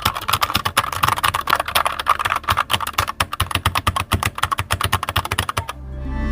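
Rapid typing on a hot-swappable mechanical keyboard, heard close up: a quick, uneven run of key clicks and clacks that stops abruptly near the end.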